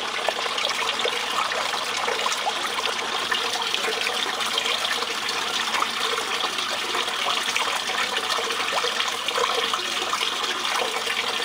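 Water running steadily across a miller table's deck and trickling off the end, the steady flow used to separate gold from black sand. A faint steady hum sits under the water.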